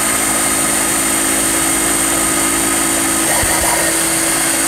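Ninja Express Chop (QB1004) 450-watt blender motor running steadily with a steady whine as it blends a thick smoothie of almond milk and frozen berries.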